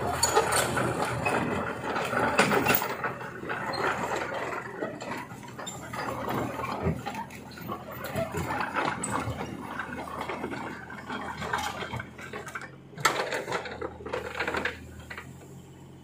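Bobcat E32 mini excavator's diesel engine running steadily under load, with a busy clattering and scraping as its bucket shoves a wrecked car along the paved ground; two sharp knocks come near the end.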